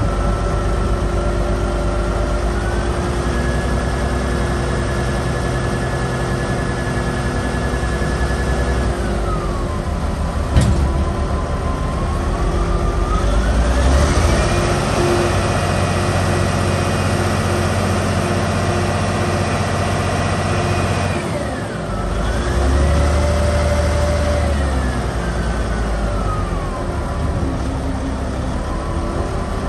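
Volvo A40E articulated dump truck's diesel engine running and revving up and down while the hydraulics lower the dump body and then raise it again. A whine rises and holds, then falls with each rev, three times. There is a single sharp knock about ten seconds in.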